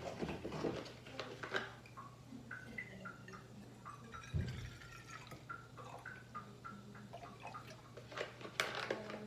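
Milk poured from a carton into a stainless steel frothing pitcher, splashing and glugging for a few seconds, with a thump about four seconds in. A steady low hum runs underneath.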